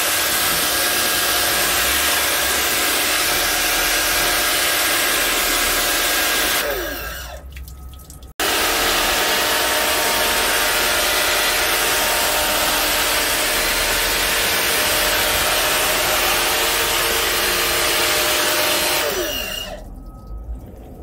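Pressure washer running through a wheeled undercarriage cleaner attachment, its water jets spraying against a vehicle's underbody: a steady loud hiss with a motor hum. About seven seconds in the spray stops and the motor winds down with a falling tone. It starts again suddenly a second or so later, and near the end it stops and winds down the same way.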